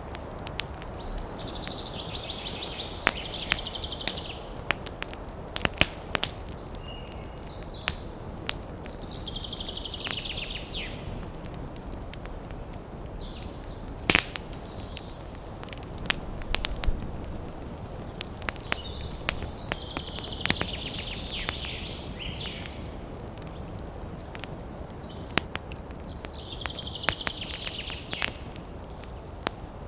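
Campfire crackling, with frequent sharp pops and snaps of burning wood over a steady rushing background. A high, fast trilled animal call, most likely a bird, repeats four times, each lasting about a second and a half.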